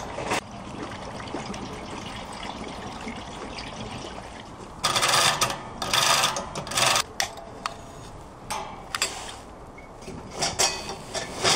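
Rubbing, scraping and clattering of a kerosene heater being handled and lit: the wick knob is turned and the burner set alight. The loudest scraping comes about halfway through and again near the end, with a faint steady hiss between.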